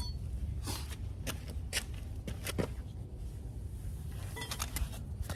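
Scattered light clicks and rustling of objects being handled, over a steady low rumble.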